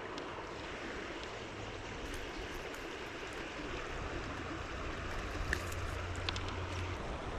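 Creek water running steadily, with a few short ticks or small splashes near the end.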